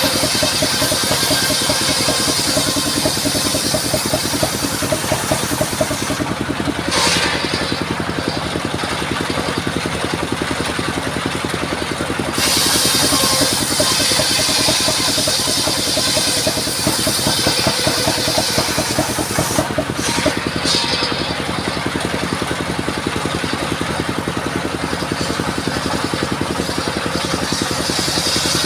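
Engine-driven mobile circular sawmill running steadily while its blade saws sengon (albizia) wood. A high sawing hiss rides over the engine and drops away briefly a few times.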